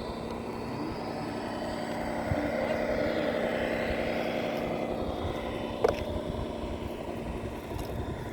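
Radio-controlled scale model machinery running: a steady motor whine that swells and then eases off over a few seconds, with a sharp click about six seconds in.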